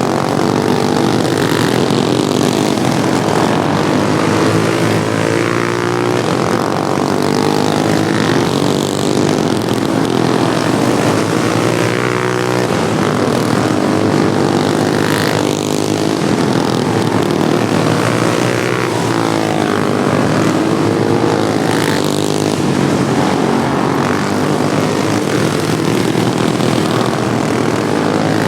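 Several modified Wheel Horse racing lawnmowers' small engines running hard together on a track. Their overlapping pitches rise and fall repeatedly as the machines pass and work through the turns.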